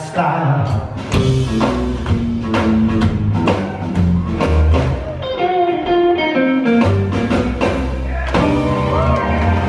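Live rockabilly band playing an instrumental passage on upright bass, drum kit, piano and electric guitar. A guitar line runs over drum hits about twice a second.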